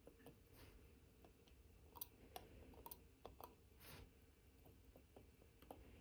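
Faint, scattered small clicks and taps of watchmaker's tools against the parts of an Omega Cal.1109 watch movement during reassembly, over a low room hum.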